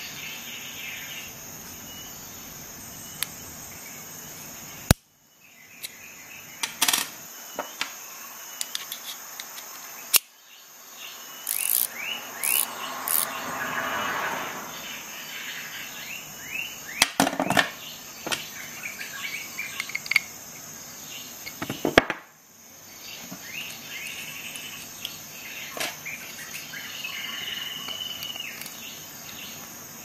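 Insects chirring steadily in high, even tones, with many sharp clicks scattered throughout and a denser rustling stretch around the middle.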